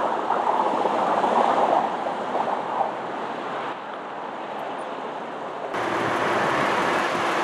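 Steady rushing outdoor noise of wind and road traffic, with no distinct events. About two thirds in the noise changes abruptly, becoming brighter and a little louder.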